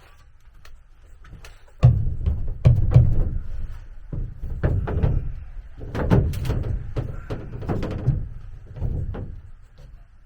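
A camper bathtub-shower unit being shifted and bumped into position: a run of heavy, irregular thumps and knocks that starts suddenly about two seconds in and dies away near the end.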